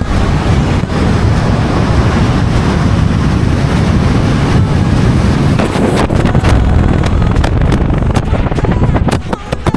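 Loud rushing wind buffeting an action camera's microphone, starting abruptly, with a run of sharp knocks and clicks over the last few seconds.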